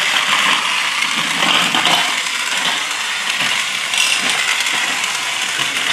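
Battery-powered Thomas & Friends TrackMaster toy train running on plastic track: a steady motor whir with plastic rattling.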